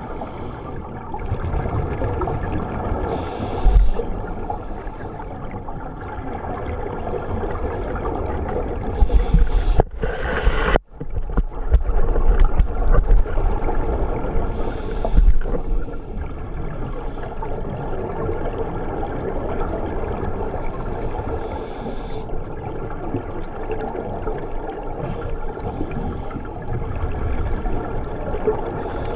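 Scuba divers breathing through their regulators underwater: exhaled bubbles rush and gurgle out every few seconds over a steady muffled rumble of water.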